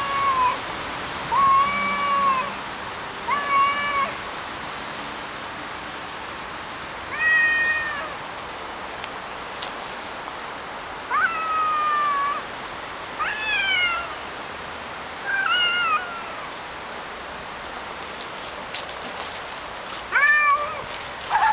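Two tabby tomcats squaring off, trading threat yowls: about nine drawn-out calls every few seconds, some rising in pitch, over a steady background hiss.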